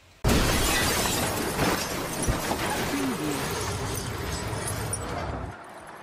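A dramatic sound effect that bursts in suddenly: a loud, dense crash-like noise that holds for about five seconds, easing down a little, then cuts off.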